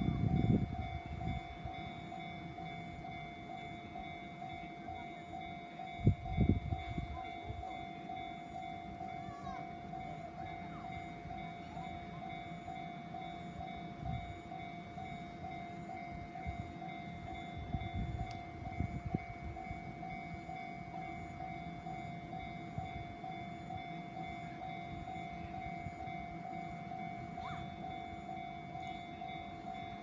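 Japanese railway level crossing warning bell ringing steadily, its repeated electronic tone running on while the crossing lights flash and the barriers are down. A few short low rumbles, the loudest near the start and about six seconds in.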